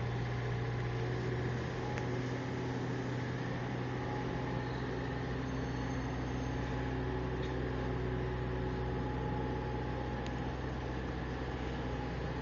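Excavator diesel engine running steadily, heard from inside the cab as an even low hum.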